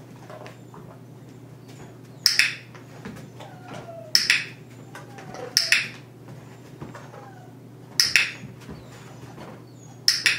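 Dog-training clicker clicked five times, a second or two apart, each a quick double click of press and release, marking the dog's correct moves around the cone. Faint high whines from the dog come between the clicks.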